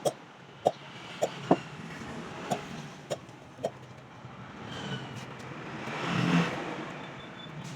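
A road vehicle passes by, its engine noise swelling to a peak about six seconds in and then fading. Before it come several short, sharp knocks.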